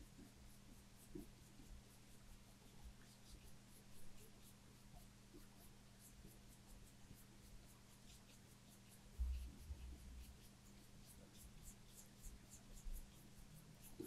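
Faint strokes and dabs of a paintbrush laying gouache on paper, over a steady low hum, with one soft low thump about nine seconds in.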